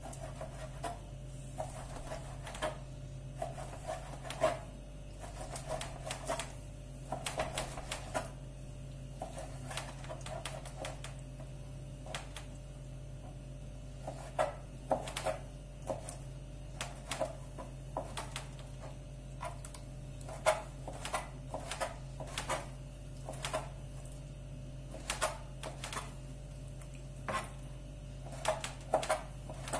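Kitchen knife slicing and cubing lamb liver on a plastic cutting board: irregular taps and knocks of the blade meeting the board, over a steady low hum.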